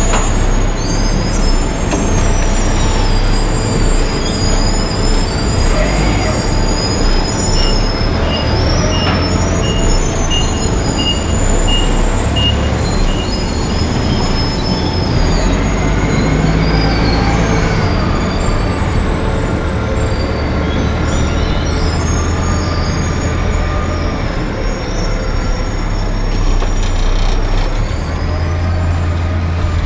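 Zetor 7011 tractor's four-cylinder diesel engine running steadily while driving, with high wavering squeals above the engine sound.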